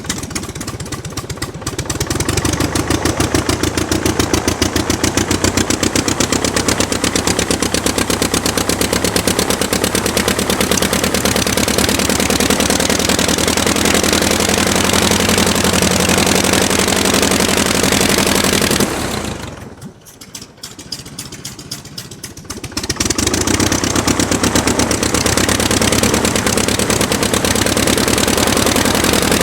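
Aircraft engine running with an even, rapid firing beat. About two-thirds of the way through it throttles back to a low idle for a few seconds, then runs up again.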